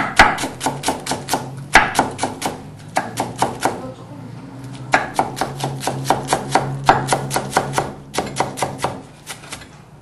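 Chef's knife shredding lettuce on a wooden cutting board: quick, even runs of blade taps, about five a second. There is a short lull about four seconds in, and the chopping stops near the end.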